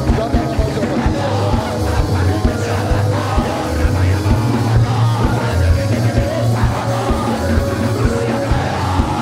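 Loud live band music with a steady drum beat and heavy bass, under a crowd of voices praying aloud and shouting.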